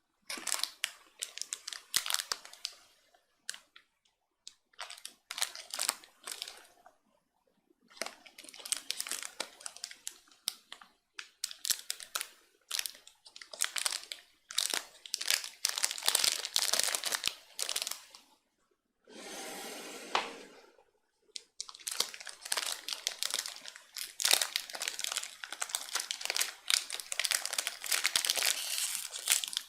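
A biscuit's crinkly wrapper being handled and opened, crackling in bursts with short pauses. About 19 seconds in there is a smoother two-second rustle, like the wrapper being torn or slid.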